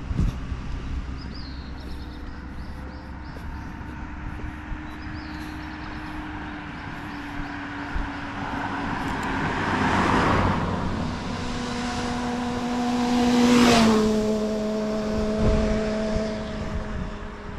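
Cars passing by on a road. A rush swells and fades about ten seconds in, then a louder pass near fourteen seconds, where the engine hum drops in pitch as it goes by.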